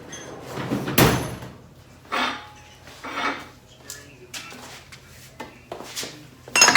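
Metal hand tools clanking and scraping as they are handled, in several separate knocks, the loudest about a second in and another near the end.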